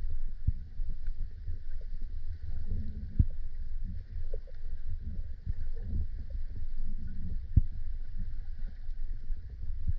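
Muffled underwater sound picked up by a camera beneath the water: a low, uneven rumble of water moving against the camera, broken by a few sharp knocks, the loudest about three-quarters of the way through.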